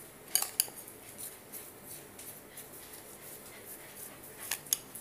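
Metal spoon stirring crushed peanuts and sugar in a ceramic bowl, scraping with a few sharp clinks against the bowl: two about half a second in and two more near the end.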